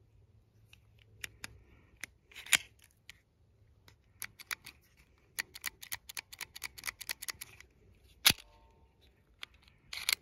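Metal clicks of an unloaded Taurus GX4 striker-fired pistol being worked: slide and action clicks, then dry-fire trigger pulls with a quick run of light clicks in the middle and sharp single clicks near the end. The trigger is being tested for reset, which at times fails and leaves a dead trigger; here it resets.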